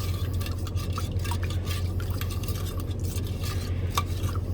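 Spoon stirring a drink in a cup, with light irregular clinks and scrapes against the cup.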